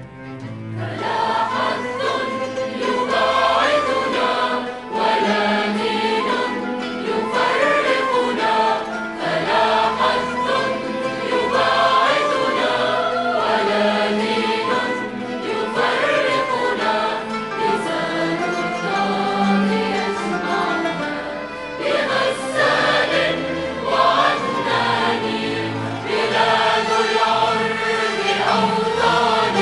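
A large choir singing live in a concert hall, with orchestral accompaniment under the voices.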